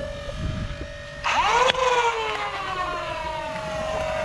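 Flywheel foam-dart blaster's motors humming at a steady pitch, then revving up suddenly about a second in, with a sharp click, and winding down in a long whine that falls in pitch.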